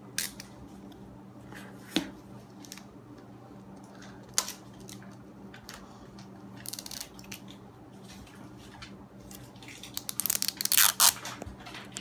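Plastic packaging of an L.O.L. Surprise toy being handled and torn open: scattered sharp crackles and clicks, then a loud burst of crinkling near the end.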